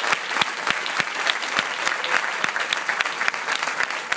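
An audience applauding steadily, with sharp single claps standing out close by.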